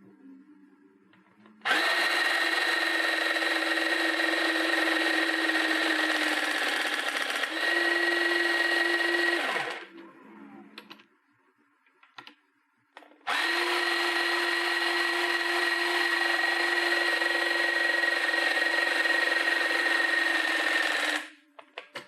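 Battery-powered hydraulic crimper's 14.4 V DC motor and pump running steadily while the ram drives the crimping dies, in two runs of about eight seconds each with a pause and a few clicks between. The pitch shifts slightly near the end of the first run.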